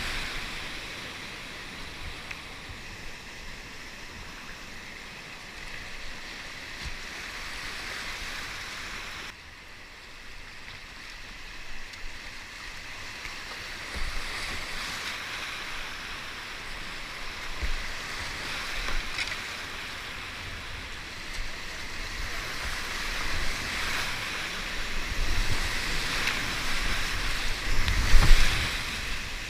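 Rushing whitewater of a river rapid, rising in level towards the end, with low thumps of wind and water buffeting the microphone.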